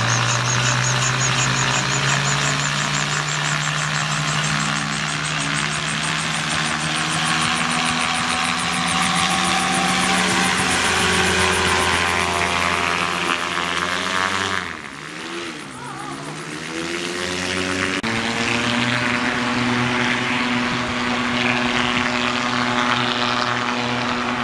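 Yamaha 150 hp aircraft-conversion engine driving a gyrocopter's propeller through a Mohawk Silent Drive reduction drive, running steadily at high power while the rotor is spun up. About fifteen seconds in the power drops sharply as the prerotator clutch is released and the throttle eased, then the engine runs steadily again at power.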